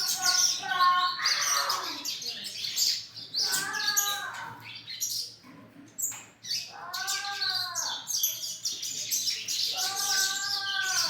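A brood of young birds chirping continuously in high, rapid calls. Three longer, lower, arching calls cut through about a third, two thirds and near the end of the stretch.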